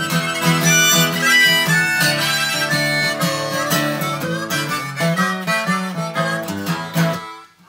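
Harmonica playing a blues melody over strummed guitar accompaniment. The music breaks off briefly near the end.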